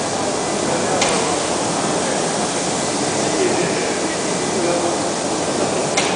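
Automatic pallet stretch-wrapping machine running in a factory hall: a steady, loud mechanical noise, with a sharp click about a second in and another near the end.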